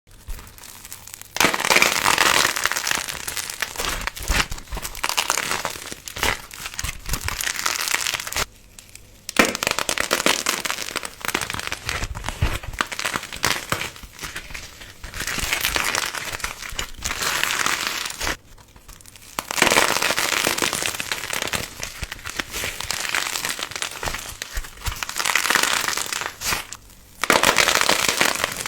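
Something being crushed, giving dense crackling and crunching in long bouts, with a short pause about a third of the way in, another about two-thirds in, and a brief one near the end.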